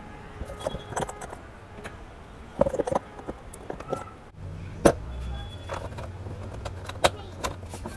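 Sharp clicks, knocks and light clinks of hands handling a toy ride-on jeep's plastic wheel and fitting a chrome plastic hub cap onto it, close to the microphone. A steady low hum comes in about halfway through.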